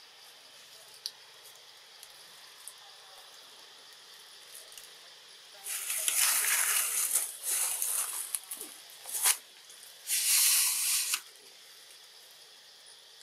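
Four bursts of rustling, hissing noise in the second half, the longest lasting about a second and a half, over a faint steady insect hum.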